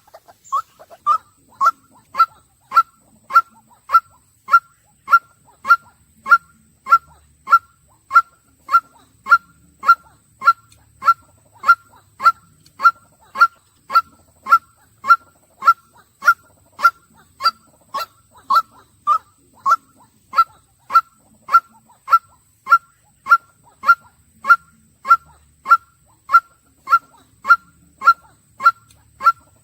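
White-breasted waterhen calling: a single short 'kwak' note repeated steadily and monotonously, about two a second.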